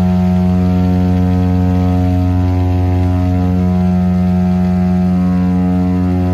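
Britten-Norman Islander's twin piston engines and propellers running steadily on the runway, heard inside the cockpit as a steady low drone.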